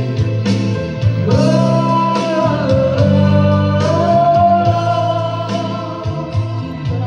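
Background music: a song with a sung melody over guitar and a steady beat.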